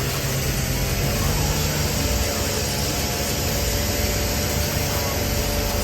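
A machine running steadily: a constant loud rushing noise with a steady hum beneath it.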